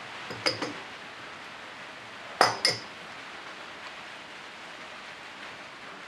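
Metal clinks as steel tools or parts are handled: three light clinks in the first second, then two louder ringing clinks about two and a half seconds in, over a steady low hiss.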